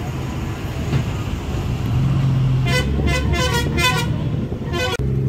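Bus engine running with road noise, heard from inside the bus. About halfway through, a vehicle horn sounds a quick run of short toots lasting about two seconds.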